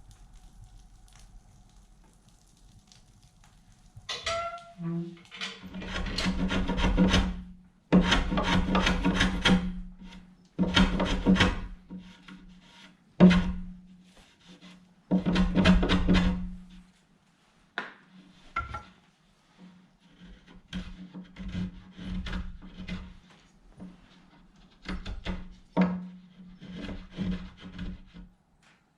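A hand tool rasping or scraping along walnut in repeated strokes. The first strokes are long, about one to two seconds each, and later ones are short and quick.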